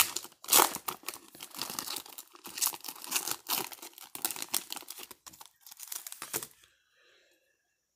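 Foil wrapper of a Topps trading-card pack being torn open and crinkled by hand, a dense run of crackling that stops about two-thirds of the way through, leaving near quiet.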